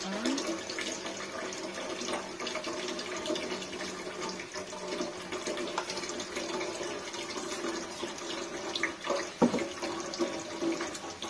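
Battered chicken pieces deep-frying in hot oil in a wok: a continuous sizzle with fine crackling. It is briefly louder about nine and a half seconds in.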